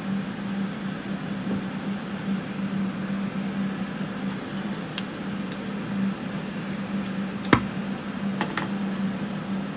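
Steady whir of room fans with a low hum, with a few light clicks of small tools on the bench and one sharper click about seven and a half seconds in.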